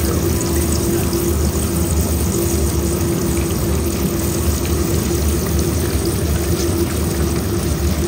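Water churning and sloshing in a steel bucket as a flat iron bar stirs it hard while molten silver is poured in a thin stream, granulating the metal. Under it runs a steady, loud, low machine drone with a constant hum above it.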